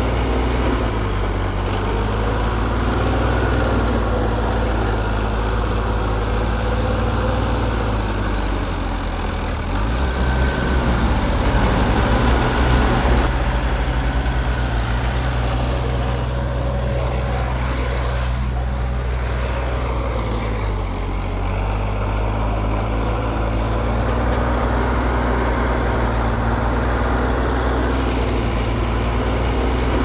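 Heavy diesel engine of earthmoving machinery running steadily under load. It works harder and gets louder from about ten to thirteen seconds in, then settles, with a smaller shift in pitch around twenty seconds. A faint, steady high whine runs above it.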